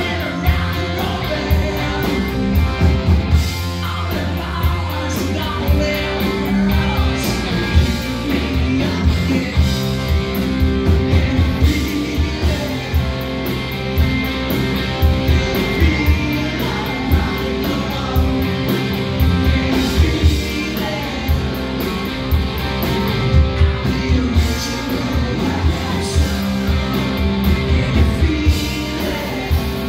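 Rock band playing live, heard from the audience: electric guitars, bass guitar and drums over a heavy, steady low end.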